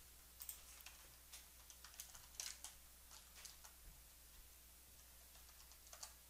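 Faint computer keyboard typing: a quick run of keystrokes over the first four seconds, then a few more near the end.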